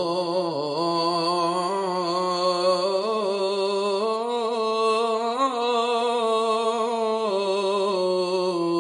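A man chanting the Hebrew Torah text in traditional cantillation, Jerusalem custom. He draws out one long, unbroken melisma with no new words, the pitch gently wavering up and down.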